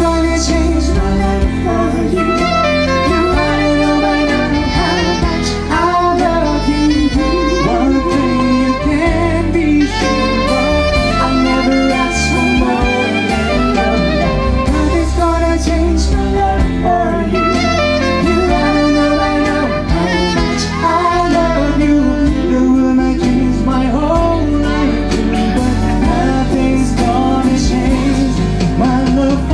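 A man and a woman singing a duet into microphones, backed by a band.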